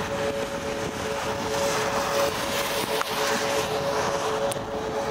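Steady rain and road noise from a car driving on a wet highway in a storm, with two steady tones running under it.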